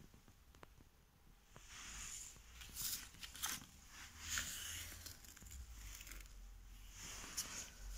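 Faint, scattered rustling and scraping from hands handling seeds, pot and phone, with several short brushes, the clearest about three, three and a half, four and a half and seven and a half seconds in, over a faint low hum.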